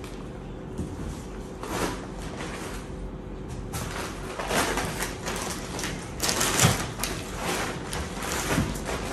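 Reusable shopping bags and plastic-wrapped groceries rustling as items are lifted out and set down, in irregular bursts, the loudest a little past halfway.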